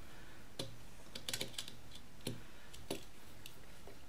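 Irregular light clicks and taps of a small metal driver working the screws of scope rings as they are tightened down.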